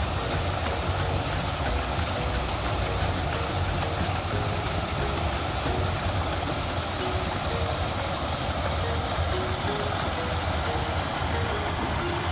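A small creek waterfall steadily rushing and splashing over rocks into a pool, with a deep rumble under the spray. Soft background music, a slow melody of held notes, plays over it.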